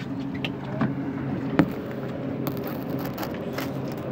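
Boat engine running with a steady low hum, with a sharp knock about a second and a half in and a few lighter clicks.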